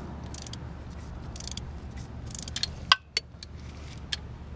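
Metal hand tools clinking against engine parts: light metallic rattling, then a few sharp ringing clinks about three seconds in, over a steady low hum.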